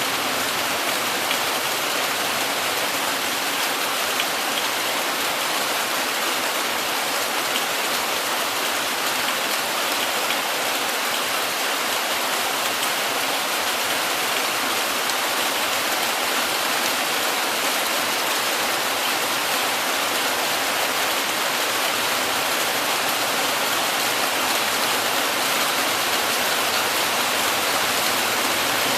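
Heavy rain falling steadily: an even, unbroken hiss of a downpour, with no thunder.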